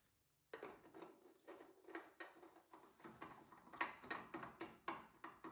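A new spin-on oil filter being screwed by hand onto the mount of a Kawasaki V-twin lawn tractor engine: a quick run of small irregular clicks and scrapes of hand and metal can on the threads, starting about half a second in.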